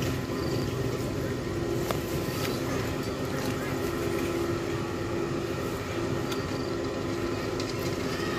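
A steady low hum over constant background noise, with a few faint ticks.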